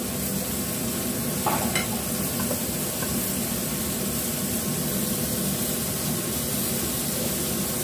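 Floured green mussels frying in a wok, a steady sizzle throughout, with a couple of light taps about a second and a half in.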